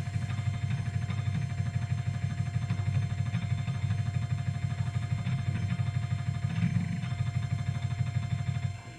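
Panasonic SuperDisk 240 drive spinning a 1.2 MB Japanese-format (PC-98) floppy disk and reading a file off it: a steady, fluttering mechanical rumble that stops shortly before the end, once the read is done.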